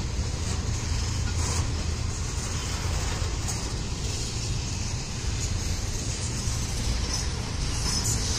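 Norfolk Southern double-stack intermodal train rolling slowly past: a steady rumble of well cars' steel wheels on the rails, with occasional light clicks.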